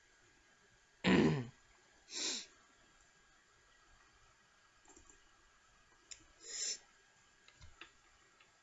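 Three short, loud breath noises close to a microphone, the first the strongest, about a second in, then two more, followed near the end by a few light computer mouse clicks.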